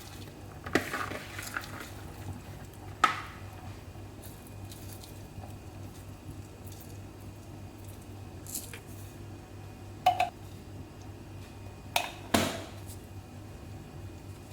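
Kitchenware being handled: five short knocks and clinks, the last two close together near the end, over a low steady hum.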